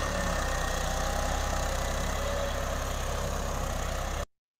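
Tractor engine running steadily while pulling a three-bottom reversible mouldboard plough through a field. The sound cuts off abruptly about four seconds in.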